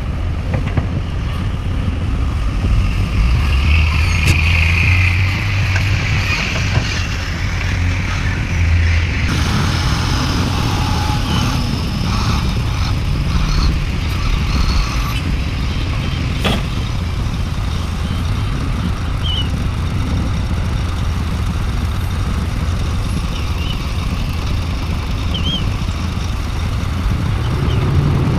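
Diesel engine of a Sumitomo SH350 hydraulic excavator running steadily while loading soil into a dump truck, with one sharp knock about sixteen seconds in.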